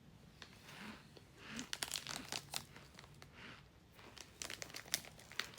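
Plastic bag crinkling and crackling as it is handled and opened, the sharp crackles starting about a second and a half in.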